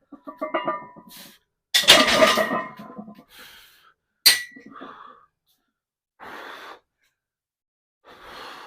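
A weightlifter breathing hard and groaning right after a heavy set of barbell squats. A metal clank comes about two seconds in and a sharp ringing clink about four seconds in, typical of weight plates or a barbell knocking, followed by slow, heavy breaths.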